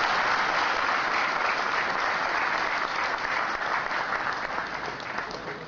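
Audience clapping steadily, easing off gradually near the end.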